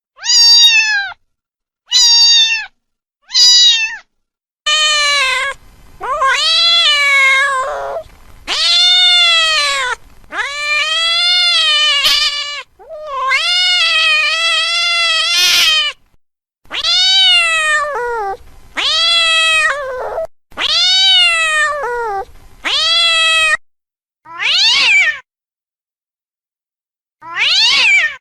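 Domestic cat meowing over and over, each meow rising and then falling in pitch, with clean dead silence between calls. A few short meows open, then a run of longer, drawn-out meows, then a couple of short ones again near the end.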